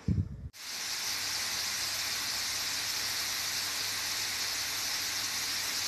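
Potato chips deep-frying in hot oil in a stainless steel pan: a steady, even sizzle that sets in about half a second in, with a faint low hum underneath.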